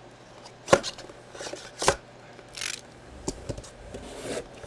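Cardboard box being opened and handled: two sharp knocks about a second and two seconds in, a brief rustle of cardboard and paper, then a few light taps and a short scrape.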